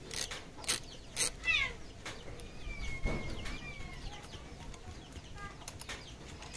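Metal wrench clicking and clattering against a bolt by a Yamaha R25's regulator-rectifier, several sharp clicks in the first second and a half. A faint wavering call sounds in the background midway.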